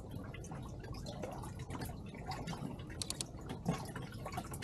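Small water sounds, lapping and dripping around a kayak, with scattered light clicks and taps and a short cluster of sharper clicks about three seconds in.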